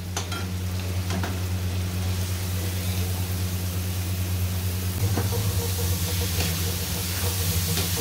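Masala sizzling in a metal kadhai as boiled fenugreek seeds are tipped in, then a metal spatula scraping and knocking against the pan as the mixture is stirred, from about halfway through. A steady low hum runs underneath.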